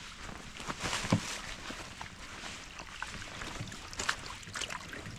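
A small, shallow creek trickling, with irregular footsteps crunching through dry leaves. The firmest step comes about a second in.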